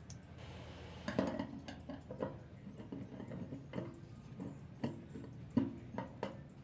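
Irregular clicks and knocks of parts and tools being handled while a microwave oven is taken apart, about a dozen in all, the loudest a little over a second in and again around five to six seconds in.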